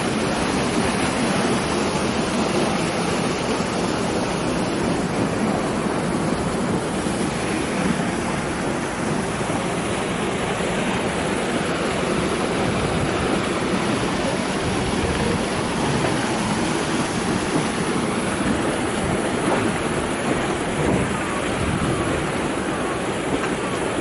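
Steady rushing of flood water, an even noise with no breaks.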